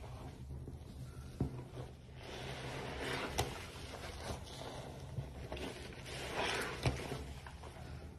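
Wet detergent foam and granules squelching and scraping as gloved hands knead and press them with a sponge. The scrubbing swells twice, with a few sharp clicks, over a faint steady low hum.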